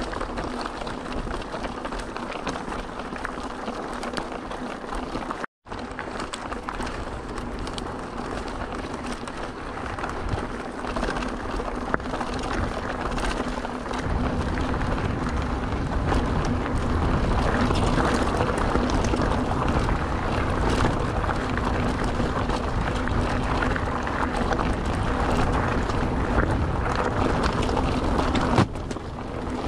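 Mountain bike rolling over a rough trail: steady tyre and rattle noise with a low hum underneath. It drops out for a moment about five seconds in and gets louder about halfway through.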